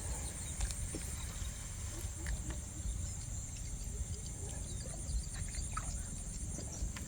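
Steady high-pitched chirring of insects, a fast pulsing that holds without a break, over a constant low rumble, with scattered small clicks.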